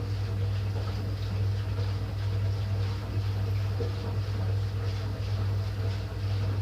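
Ariston Quadrifoglio LB476ST washing machine drawing in water for the prewash: a steady electric hum from the fill valve with water rushing into the drum.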